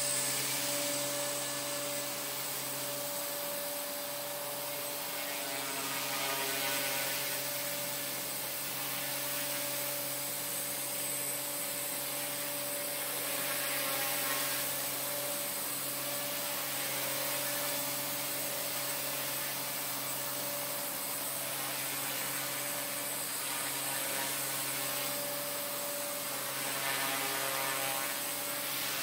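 Align T-Rex 250 electric RC helicopter in flight: a steady whine of its motor and rotor blades, swelling louder a few times.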